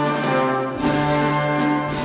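Spanish Holy Week processional march (marcha procesional) played by a wind band. Brass holds sustained chords, and the chord changes about a second in.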